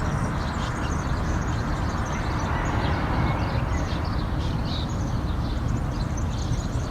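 Dawn chorus of many small birds, their short chirps coming thick and fast over a steady low rumble.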